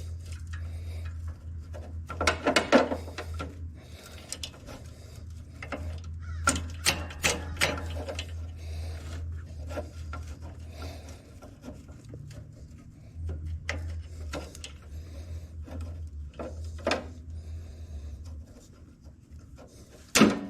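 Hand tools working on metal tractor parts: irregular clinks, knocks and scraping, the loudest about two seconds in and near the end, over a steady low hum.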